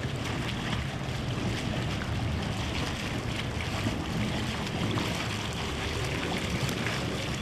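Pool water splashing and churning steadily as a man and a large dog wrestle in it, with wind buffeting the microphone.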